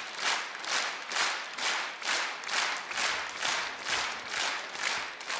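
Audience clapping in unison, a steady rhythm of a little over two claps a second.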